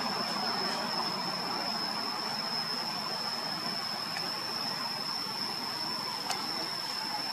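Steady outdoor background hiss with a constant thin high-pitched whine over it, and a faint click about six seconds in.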